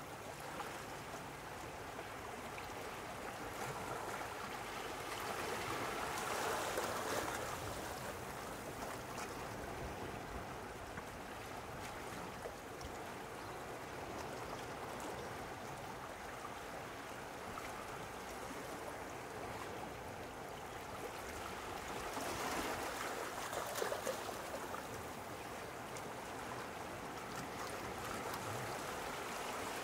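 Small sea waves lapping and washing, a steady wash of water that swells twice, about six seconds in and again around twenty-three seconds in.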